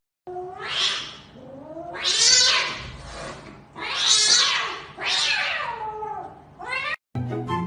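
A cat caterwauling: four long, drawn-out yowls that rise and fall in pitch, then a short cry just before it cuts off.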